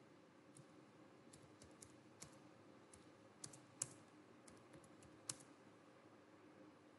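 Faint typing on a computer keyboard: scattered single keystrokes at an uneven pace, with a few louder taps a little past halfway.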